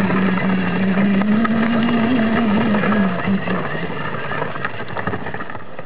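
Children's battery-powered ride-on quad running across gravel: a steady motor drone that wavers slightly in pitch partway through, over the crunch and rattle of its plastic wheels on loose stones, easing off near the end.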